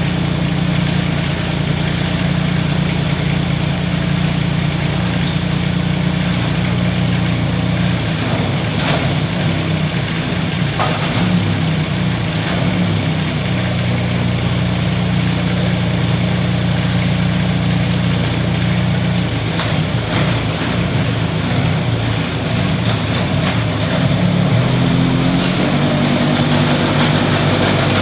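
Kubota K008-3 mini excavator's diesel engine running while its hydraulics are worked. The engine note shifts unevenly as the controls are moved, then rises in pitch and level about 25 seconds in.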